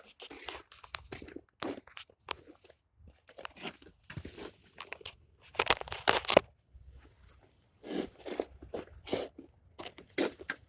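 Irregular crunches and scrapes on icy, crusted snow, with a loud cluster of crunches a little past the middle.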